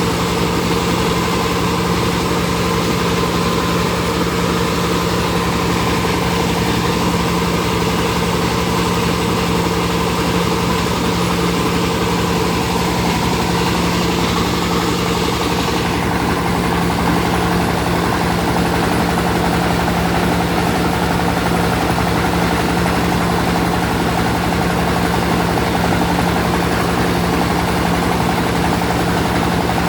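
Rice milling machine running steadily: a constant mechanical hum under a broad grinding hiss, the hiss thinning a little past halfway.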